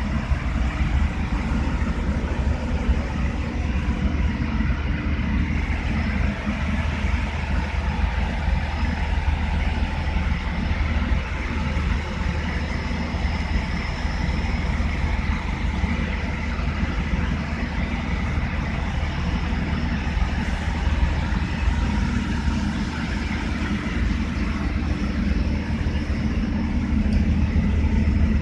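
Ship's engine-room machinery running: a steady, unbroken drone with a strong deep rumble and a dense mechanical din over it.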